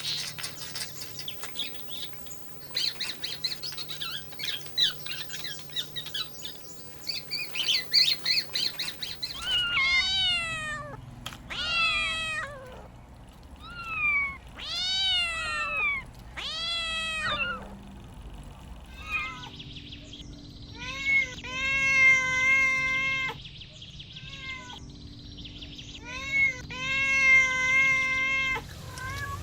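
Kittens meowing: a run of short rising-and-falling meows, then longer, drawn-out meows in the second half. The first third is a busy, high-pitched chirping.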